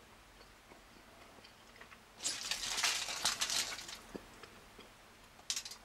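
Aluminium foil wrapper of a chocolate bar crinkling as it is unfolded, about two seconds in and lasting nearly two seconds, then a brief second rustle near the end.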